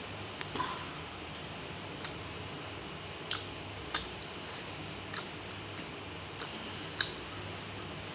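Close-miked chewing, with about seven sharp mouth smacks at irregular intervals of roughly a second, over a steady low hiss.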